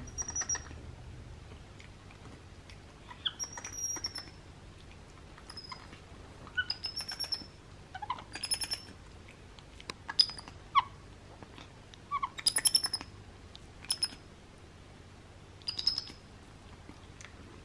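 Baby capuchin monkey making little high-pitched chirps and squeaks, about ten short calls a second or two apart, some sliding down in pitch.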